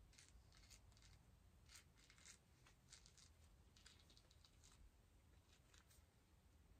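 Faint crackling and tearing of orange peel being pulled off by hand, in many small irregular rips.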